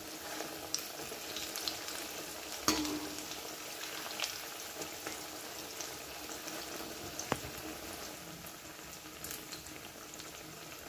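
Chana dal fritters deep-frying in hot oil in a kadai, a steady sizzle and bubbling, with a few sharp clicks of a metal spatula against the pan, the loudest about three seconds in.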